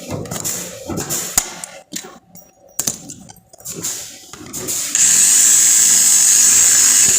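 Irregular knocks and clatter of tool handling, then about five seconds in a power tool starts and runs steadily and loudly with a high whine.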